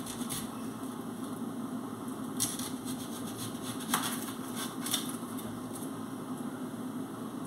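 A few short knife clicks and scrapes as a vegetable is peeled and cut by hand over a kitchen sink, over a steady low background hum.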